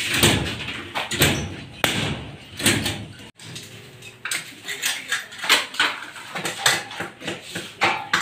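Construction work: irregular knocking and clatter of tools with indistinct voices, cutting off abruptly about three seconds in and then resuming.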